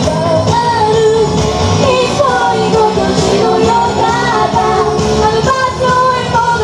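Two girls singing a pop song together into handheld microphones over backing music.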